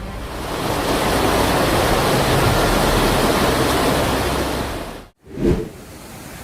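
A rain-swollen waterfall rushing, a loud steady noise of falling water. It cuts off suddenly about five seconds in, followed by a brief low thump and then a quieter steady noise.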